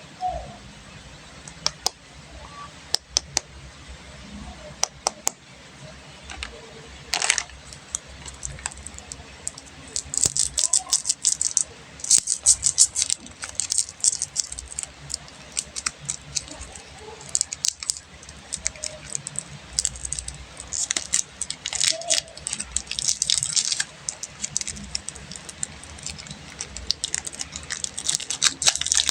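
Plastic candy wrappers and packaging being handled and unwrapped: scattered sharp clicks at first, then dense crinkling and crackling from about ten seconds in, again after about twenty seconds.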